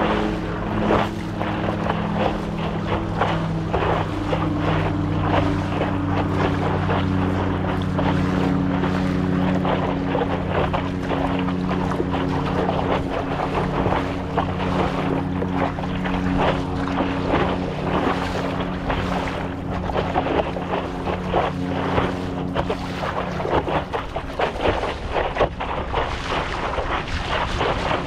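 Water splashing and sloshing against the nose of a stand-up paddleboard as it is paddled, with wind buffeting the microphone. Under it runs a steady low hum that dies away about four seconds before the end.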